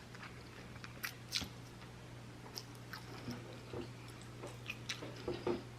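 A person chewing food close to the microphone: quiet, scattered wet mouth clicks and smacks.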